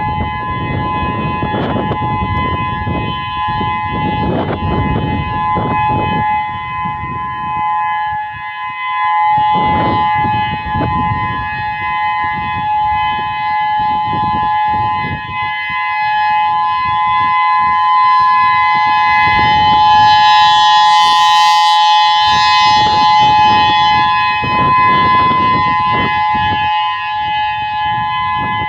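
Whelen WPS-3016 electronic outdoor warning siren sounding a steady alert tone: two steady pitches together with their overtones, holding pitch without rising or falling. Its loudness swells and eases slowly, loudest a little past the middle, with an uneven low rumble underneath.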